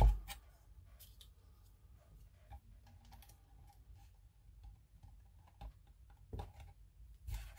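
Small parts and tools being handled on a work surface: scattered light clicks and taps, with one sharp thump right at the start and a couple of louder taps near the end.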